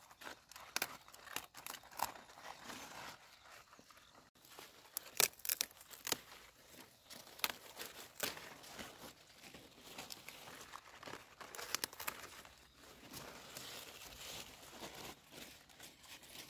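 Irregular rustling and crackling with many small sharp snaps and clicks, like things being handled, busiest about five to six seconds in.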